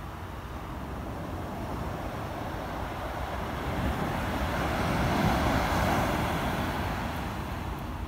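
Ocean surf on a sandy beach: a wave breaks and its wash runs up the shore, swelling about four seconds in and fading away near the end, over a steady low rumble of the sea.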